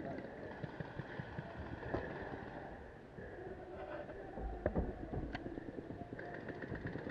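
Rustling and scattered knocks of gear handling as a paintball player shifts behind a bunker and raises a marker, with faint distant voices. About four and a half seconds in there is a low rumbling bump with a sharp knock.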